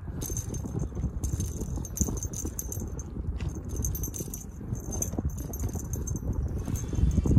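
Small bell on a feather-and-ribbon cat-teaser wand jingling off and on as the toy is waved about, over a steady low rumble.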